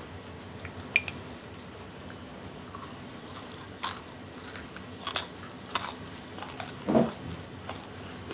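Mouth crunching and chewing of slate-pencil powder mixed with banslochan, eaten from a glass bowl: a few separate crisp crunches, a sharp click about a second in, and the loudest, deeper crunch near the end.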